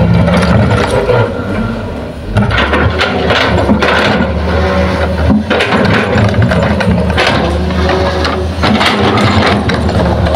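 Heavy diesel engine of earthmoving machinery running steadily, with irregular clanks and knocks scattered through. The loudness dips briefly about two seconds in.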